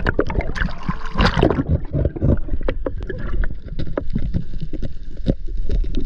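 Seawater sloshing and splashing around a diver at the surface, with many sharp slaps and a steady low rumble.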